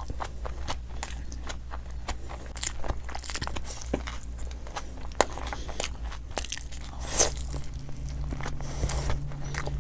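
Close-miked biting and chewing of crispy fried Indian snacks such as pakoda, with a run of irregular wet crunches and crackles. A steady low hum lies underneath.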